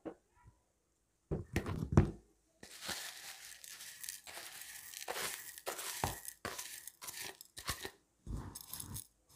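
Coarse crystal salt being pushed off a tilted steel plate into a glass bowl: a dense, crackling hiss of sliding grains full of small clicks. A couple of knocks come about a second and a half in, before the pouring starts.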